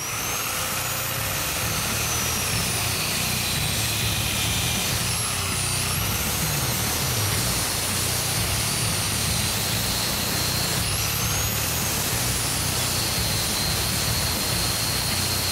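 Grinder cutting through the mounting sections of a truck's rear bumper license plate bracket, running continuously with a high whine that rises and falls as it bites into the metal.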